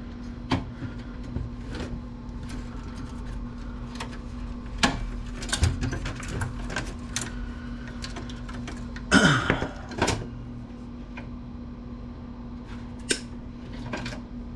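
Scattered clicks and clunks of metal and plastic computer parts being handled and worked on at a bench, with a louder scrape and clatter about nine seconds in. A steady low hum runs underneath.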